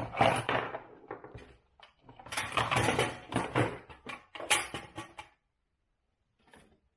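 Objects being handled and shifted about on a desk: rustling with sharp clicks and knocks, in two bursts that stop a little over five seconds in.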